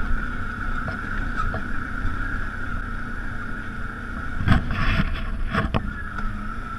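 ATV engine running steadily while riding over a rocky trail, muffled through a closed waterproof GoPro case, with a few sharp knocks as the machine jolts over rocks about four and a half and five and a half seconds in.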